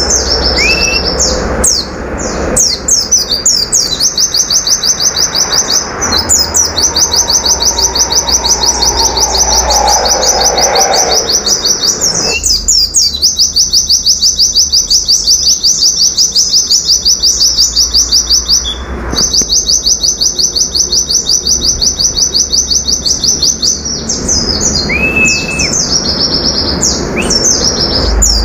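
Caged white-eye (pleci) singing its fast 'nembak' (shooting) song: long, rapid trains of repeated high notes, broken by brief pauses about 12 and 19 seconds in. A few short upswept whistles come near the start and again near the end.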